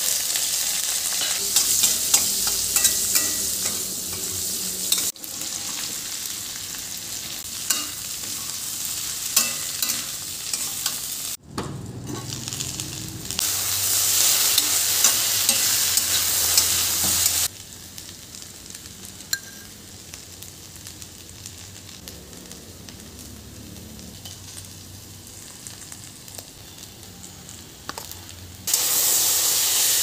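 Onions, potatoes and okra frying in hot oil in a stainless steel kadai: a steady sizzle with clicks and scrapes of a spatula stirring against the pan. The sizzle changes abruptly between louder and quieter stretches several times.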